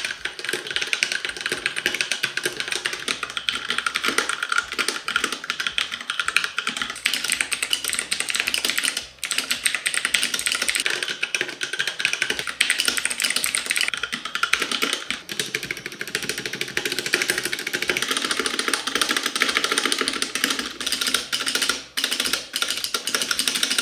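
Fast continuous typing on a mechanical keyboard: HyperX Red linear switches on an Alloy Origins 60, then, after a short break about two-thirds in, HyperX Blue clicky switches on an Alloy Origins Core.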